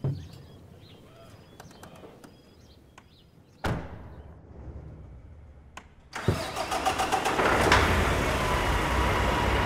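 A sharp thud about a third of the way in, then a Kenworth W990 truck's diesel engine starts about two-thirds in and settles into a loud, steady run.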